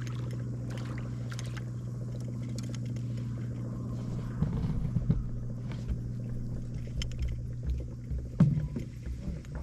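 Steady low hum of a bow-mounted electric trolling motor. A hooked crappie splashes at the surface about halfway through and again near the end.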